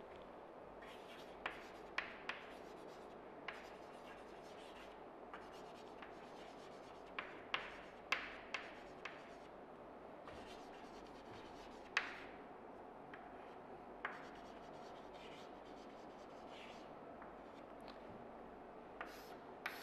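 Chalk writing on a chalkboard: faint scratching of the chalk across the board, with a dozen or so short, sharp taps at uneven intervals as it strikes the board.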